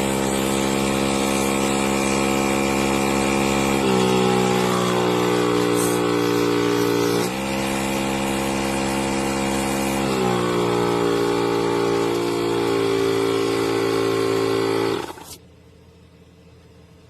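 Inzeetor 12V portable tire inflator's compressor running with a steady motor hum, then shutting off about fifteen seconds in. Its pitch drops a step about four seconds in, jumps back up about seven seconds in, and drops again about ten seconds in.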